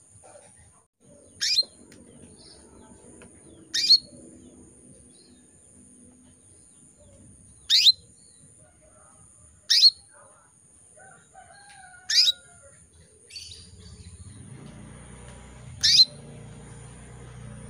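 Female domestic canary giving short sharp chirps, each one a quick downward sweep, six times at intervals of two to four seconds: the calls of a hen in breeding condition calling to a male.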